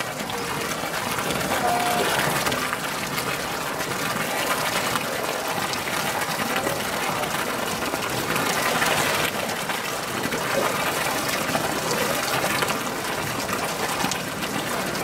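Two polar bears wrestling in a pool, their bodies churning the water into steady splashing and sloshing.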